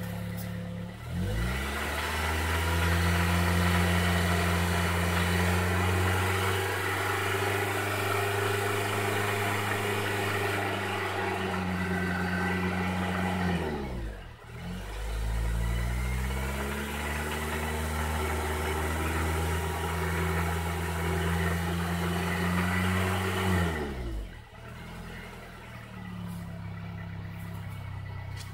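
Honda Civic Type R engine revved up from idle and held steady at raised revs twice, each time for about ten seconds, dropping back in between and settling to idle near the end. The engine is said to be knocking.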